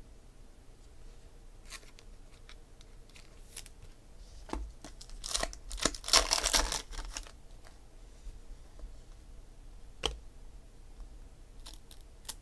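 A trading card pack's wrapper torn open and crinkled, loudest for about two seconds midway, with soft clicks and rustles of cards being handled before and after.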